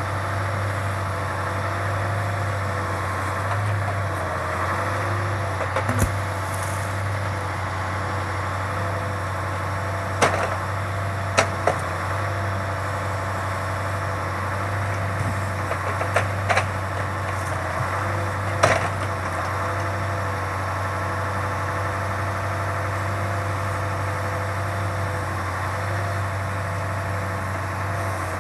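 Engine running steadily to drive an OMTL 70-02 hydraulic timber loader crane, with a low hum and a slightly wavering whine over it. Several sharp knocks come through, the loudest near the two-thirds mark.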